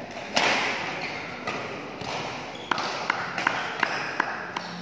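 Badminton play: a sharp racket hit on the shuttlecock shortly after the start, with an echoing tail, then a string of light sharp clicks and taps as play stops.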